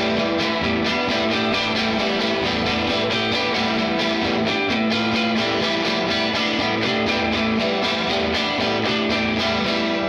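Band music led by strummed guitar, playing steadily and densely with evenly spaced strokes.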